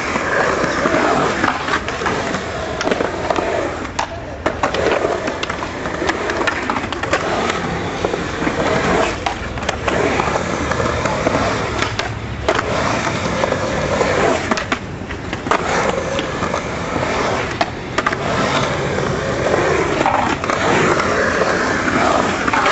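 Skateboard wheels rolling over a concrete skatepark bowl, a continuous rolling noise that rises and falls as the board carves the transitions, with several sharp clacks of the board along the way.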